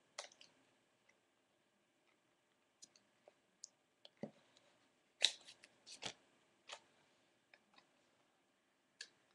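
Trading cards in plastic top loaders and sleeves being handled: faint, irregular clicks and taps, about a dozen, busiest around the middle.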